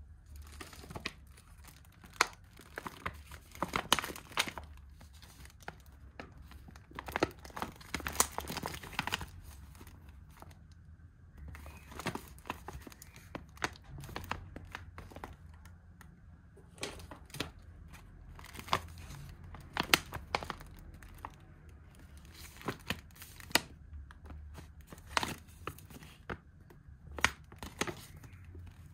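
Plastic packaging being handled and torn open: irregular crinkling and ripping with sharp crackles, coming in spells with short pauses between.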